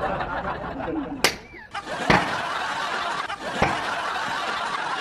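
Girls giggling and laughing, with a few sharp smacks: one just over a second in, one about two seconds in and one near four seconds in.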